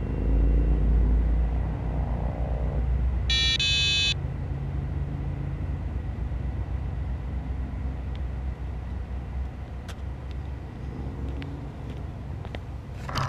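Low rumble of a passing motor vehicle whose pitch sweeps in the first couple of seconds, fading to a quieter rumble. A short two-part electronic beep sounds at about three and a half seconds, and near the end footsteps come close and a sharp knock follows.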